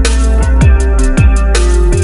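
Background electronic music with a steady beat and deep bass drum hits that drop in pitch.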